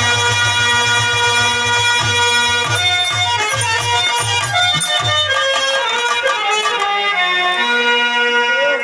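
Instrumental Birha folk music: a harmonium plays a sustained melody over a held drone note. A drum beats under it through the first half and then stops.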